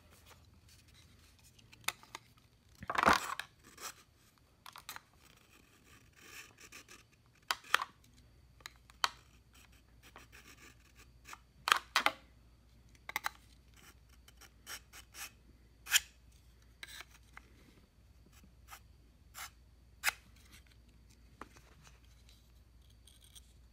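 Knife blade pulled through the slots of a Smith's Edge Pro pull-through sharpener in short, irregular scraping strokes. The longest and loudest stroke comes about three seconds in.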